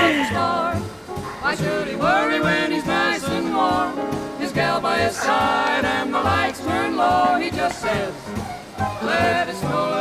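Background music: a Christmas song with singing over a band accompaniment.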